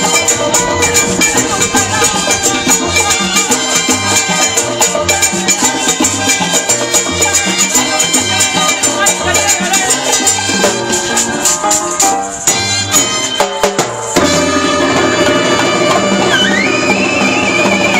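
Live salsa band playing, with hand drums and shakers keeping a steady rhythm. About eleven seconds in the music thins out in a short break, then the full band comes back in about three seconds later.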